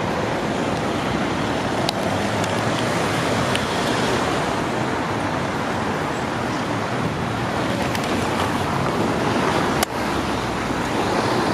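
Steady road traffic noise from cars moving on a wide, busy road, with one brief click near the end.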